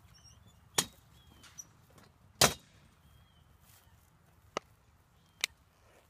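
Four sharp knocks from a dog-carting wagon and its shafts being handled; the second, about two and a half seconds in, is the loudest.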